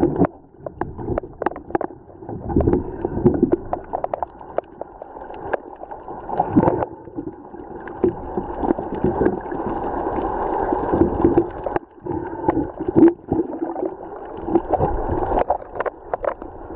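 Muffled underwater sound picked up by a camera held under water: gurgling water with scattered clicks and knocks, and a steady low hum that swells in the middle.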